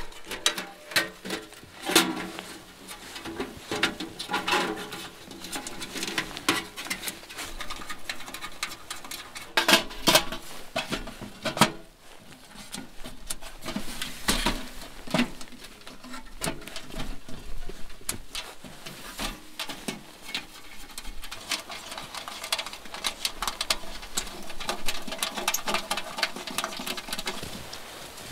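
Sheet-metal panels of a folding tent wood stove being slotted together by hand: irregular clinking, scraping and rattling, with several sharp metal knocks.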